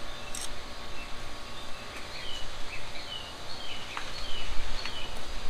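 A bird calling with short, falling chirps about twice a second, over a steady background hiss. A few light clicks come from hands working the carburetor throttle linkage.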